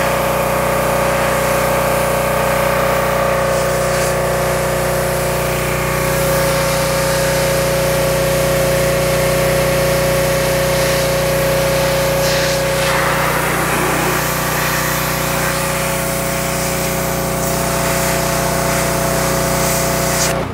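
Pressure washer running steadily, its motor humming under the hiss of the high-pressure spray as the wand blasts grime off a transmission. The spray hiss cuts off right at the end.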